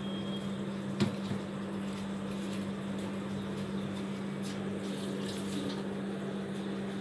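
Steady low hum with an even hiss, and a single sharp click about a second in.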